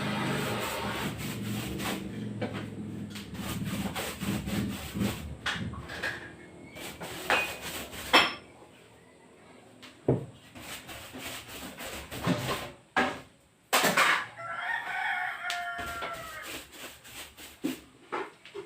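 A rooster crows once, one drawn-out call about fourteen seconds in. Around it are scattered sharp knocks and clicks, the loudest about eight seconds in, and a low hum that fades over the first few seconds.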